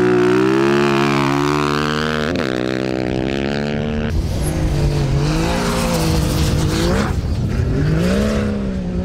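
Rally-raid vehicle engine revving, its pitch swinging up and down with a quick throttle blip about two and a half seconds in. After a cut a little past four seconds, a lower engine note rises and falls with short revs.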